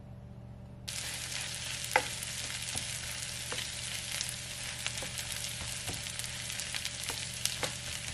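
Shredded cabbage sizzling in a frying pan, starting suddenly about a second in, while a wooden spatula stirs it and knocks against the pan now and then, with the sharpest knock about two seconds in.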